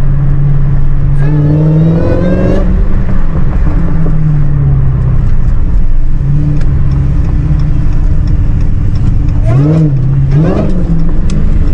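Supercharged V8 of a Dodge Challenger Hellcat with an aftermarket cold air intake, driving under changing throttle: the engine note steps up and down in pitch, with a rising supercharger whine about a second in and more quick rises and falls near the end. The supercharger is much louder than it was with the stock intake.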